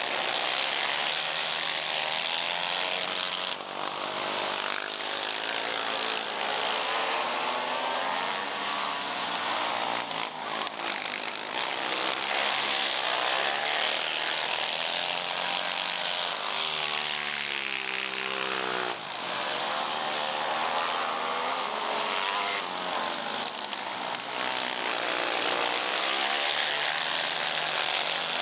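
Several racing ATV engines running at high revs together, their pitches rising and falling as the quads accelerate and back off around the track.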